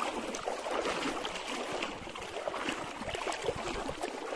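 Someone wading through shallow water: irregular sloshing with many small splashes as the legs push through.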